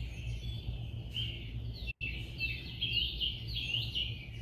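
Birds chirping in quick, short rising and falling calls over a low steady hum, with a momentary dropout about two seconds in.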